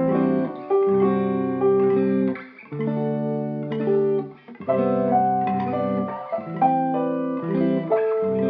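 Instrumental music led by guitar: plucked guitar notes in repeating phrases, with short breaks between them, before the singing starts.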